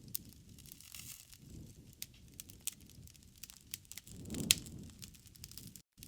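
Wood fire crackling in a fireplace: scattered sharp snaps and pops over a low rumble, with one louder pop about four and a half seconds in and a very brief gap near the end.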